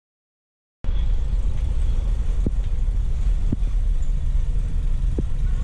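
A motor vehicle running with a steady low rumble, cutting in abruptly about a second in.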